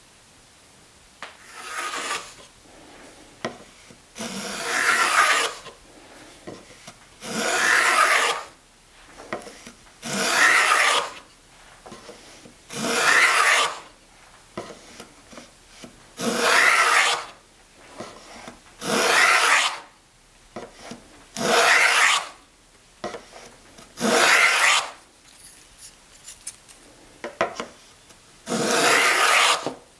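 Wooden molding plane cutting along the long grain of a board: about ten push strokes, each a rasping hiss of about a second as the iron takes a shaving, separated by short pauses while the plane is drawn back, with a longer pause near the end.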